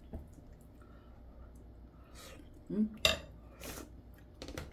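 Tableware being handled: a spoon scraping and clinking on a plate, then a few sharp clinks and clatters about three seconds in as a plastic food container is picked up.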